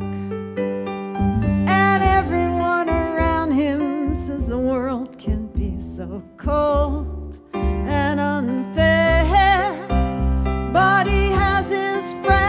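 A woman singing a slow ballad to piano accompaniment, in several phrases with short breaks between them; her held notes waver with vibrato over sustained piano chords.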